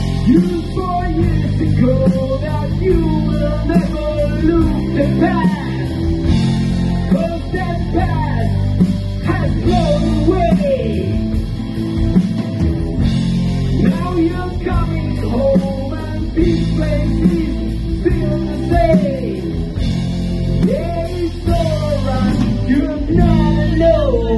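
Live rock band playing: electric bass, electric guitar and drum kit, with a singer's voice carrying the melody over the band.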